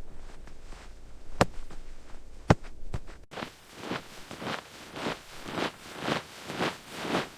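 Three sharp knocks in the first three seconds, then footsteps crunching through snow at about two steps a second.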